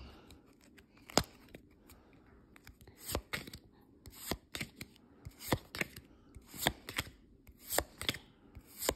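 Trading cards being flipped through one at a time by hand. Each card slides off the stack with a short crisp snap, about one a second, some in quick pairs.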